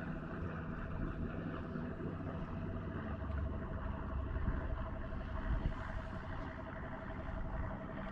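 A boat motor humming steadily with a faint pulsing whine, under a low rumble of wind on the microphone.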